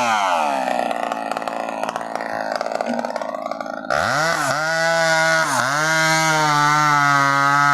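Chainsaw engine revving: its pitch falls back over the first few seconds, then about four seconds in it jumps suddenly to full speed, dips briefly twice, and holds high and steady.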